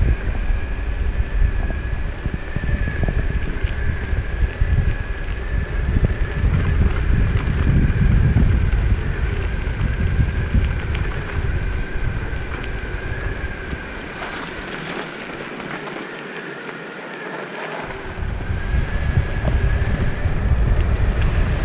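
Wind buffeting the microphone as an electric longboard rides downhill, a heavy low rumble with a thin steady high whine over it. About two-thirds of the way through, the rumble eases for a few seconds, then comes back.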